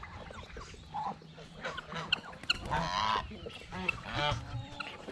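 Domestic geese honking repeatedly, the calls coming in quick runs and growing busier in the second half.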